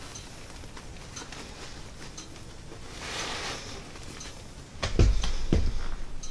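Backpack being handled and its top lid closed: soft fabric rustling and small clicks, then a few loud, dull thumps about five seconds in as the lid is pressed down.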